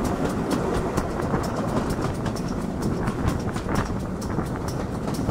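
Steam locomotive running along the line, heard from its footplate: a steady rushing noise with a fast, even beat of sharp clicks, about five a second.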